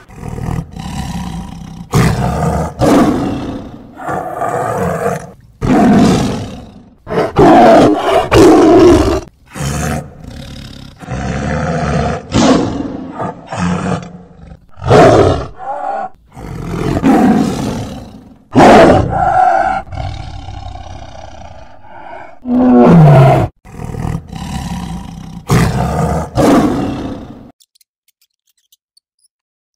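Tiger roaring again and again, loud calls a second or two long with short gaps between them, stopping a couple of seconds before the end.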